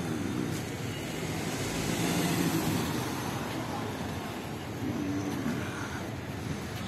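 Outdoor street ambience: a steady rumble of traffic with faint, indistinct voices in the background.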